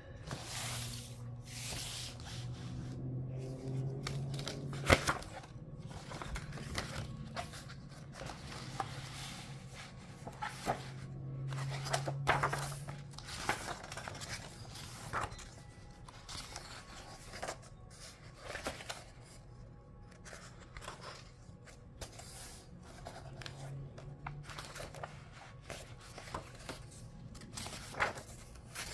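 Pages of a hardcover picture book being opened and turned by hand on a wooden table: paper rustling and sliding, with scattered soft knocks and one sharp knock about five seconds in.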